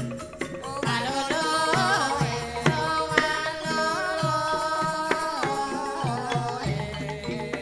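Banyumasan calung ensemble playing: bamboo calung xylophones struck in a busy rhythm over hand-drum strokes, with a woman singing a long, wavering held note in the middle.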